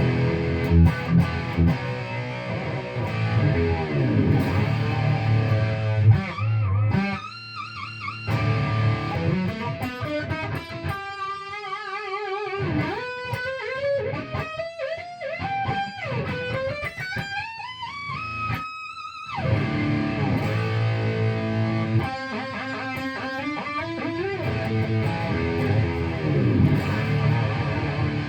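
1986 Hamer Chaparral electric guitar played with distortion on its bridge pickup. Thick distorted chords open and close the passage, with a single-note lead line in the middle, about 11 to 19 seconds in, that has vibrato and rising slides.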